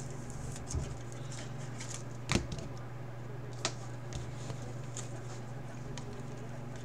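Chrome trading cards being flipped and handled, giving a few sharp clicks and taps, the loudest about two seconds in, over a steady low hum.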